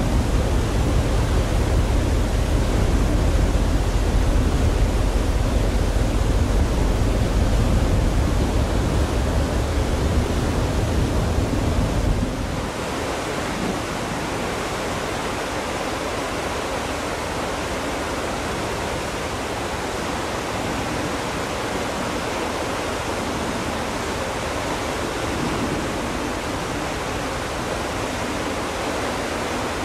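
Steady rush of wind and sea noise from the deck of a moving ferry. Heavy low wind buffeting on the microphone lasts about the first twelve seconds, then changes suddenly to a lighter, even hiss.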